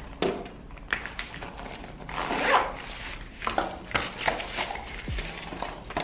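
Cardboard cosmetic boxes and packaging being handled and set down on a desk: scattered rustles, light taps and knocks.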